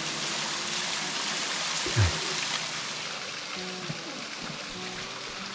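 Small waterfall splashing into a rocky creek: a steady rush of falling water, with a short voice sound about two seconds in.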